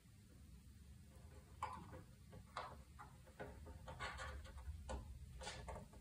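Faint, irregular clicks and taps of fingers handling a plastic model ship hull and pressing small glued parts into place, over a low steady room hum.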